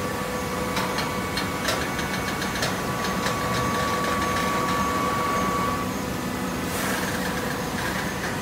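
Vertical cardboard baler's hydraulic power unit running with a steady hum. A series of sharp clicks and knocks comes in the first few seconds, and a short rush of noise follows near the end.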